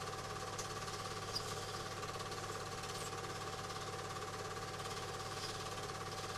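Cine film projector running: a steady rapid mechanical clatter from the film-advance mechanism over a constant motor hum.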